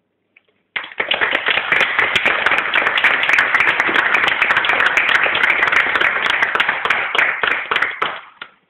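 Audience applauding: a sudden burst of many hands clapping about a second in, holding steady, then dying away near the end.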